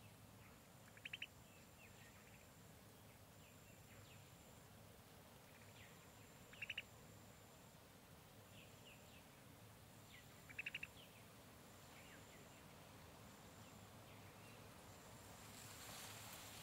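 Quiet jungle ambience. A bird calls three times, each a quick burst of three or four notes, about every four to five seconds. Beneath it run a faint high insect buzz that comes and goes and a few soft chirps, and a hiss of rustling swells near the end.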